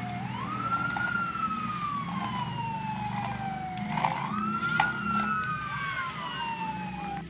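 Fire engine siren wailing: a tone that rises quickly and then slides slowly down, twice, with a second siren overlapping in the second cycle.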